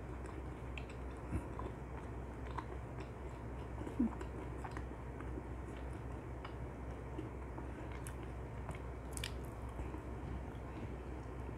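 Close-up chewing and biting of dakgangjeong, sticky-glazed Korean fried chicken, with scattered small clicks and a sharper knock about four seconds in, over a steady low hum.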